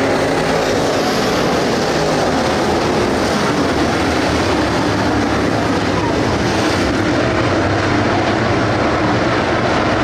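A pack of dirt late model race cars running flat out around the oval, their GM 602 crate V8 engines a loud, steady drone with no let-up.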